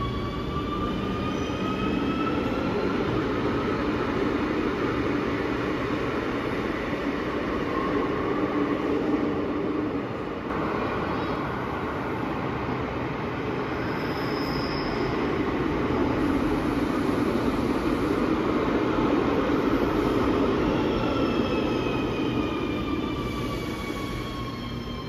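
Euskotren CAF electric trains in an underground station. The first pulls away with a rising electric motor whine over a steady rumble. After a break, a second runs in from the tunnel: a brief high squeal about fifteen seconds in, then a falling whine as it brakes to a stop near the end.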